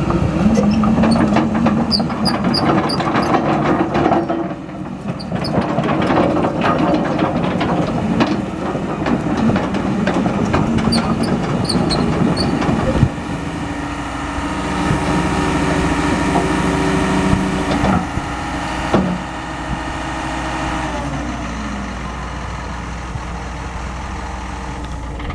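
John Deere 210G LC excavator running, its diesel engine working harder in the first half, then settling into a steadier, lower run about halfway through, with a steady whine that falls away near the end.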